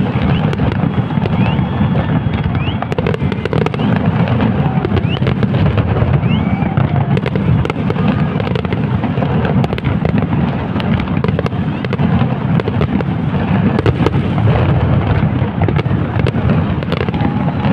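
Large fireworks display: a dense, continuous barrage of bangs and crackling shell bursts, with a few short rising whistles.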